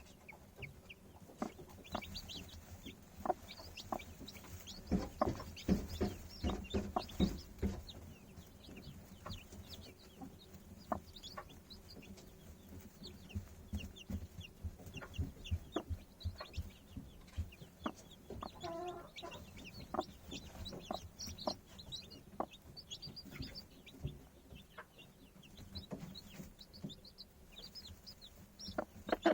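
Chickens clucking, many short clucks with scattered high chirps, and one longer drawn-out call about two-thirds of the way through.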